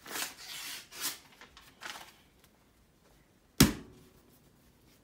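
Rustling and handling noises, then a single sharp knock with a brief ring about three and a half seconds in.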